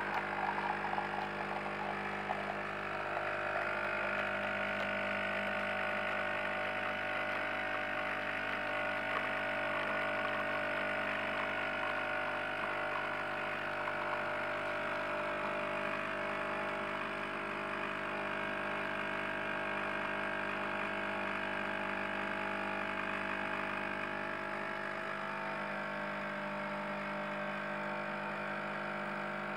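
Jura Impressa C5 bean-to-cup coffee machine's pump humming steadily while it brews coffee into a mug, dropping a little in level near the end.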